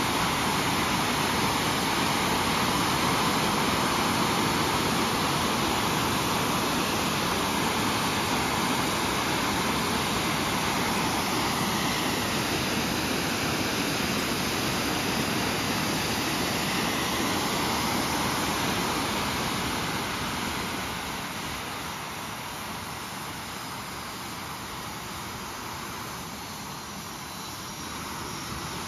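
TS-11 Iskra jet trainer's single turbojet engine running on a ground engine test: a steady rushing noise that drops somewhat about two-thirds of the way through and picks up again near the end.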